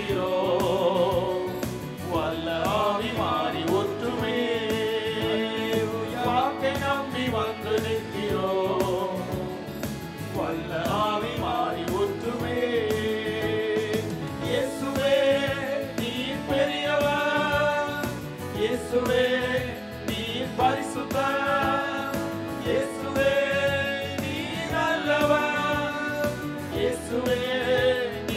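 Singing of a Christian worship song with musical accompaniment, the voices wavering and held on long notes.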